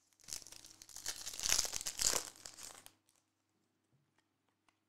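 Foil wrapper of a Prizm soccer trading-card pack crinkling as it is torn open and handled, for about three seconds and loudest in the middle, then a few faint ticks.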